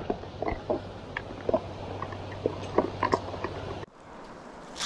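Footsteps through woodland undergrowth, with twigs and dry leaves cracking and rustling in an irregular run of short crunches over a low steady background. It stops abruptly about four seconds in.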